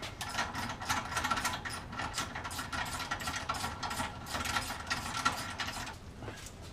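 Socket ratchet clicking rapidly as the spare tire's lug nuts, locking nut included, are spun off the tailgate carrier. It stops about six seconds in.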